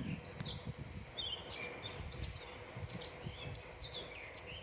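Small birds chirping in short, high calls scattered throughout, over an uneven low background rumble.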